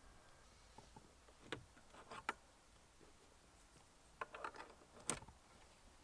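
Near silence with a few light clicks and knocks of the handheld car vacuum's plastic parts being handled and fitted together, in small clusters, the sharpest about five seconds in.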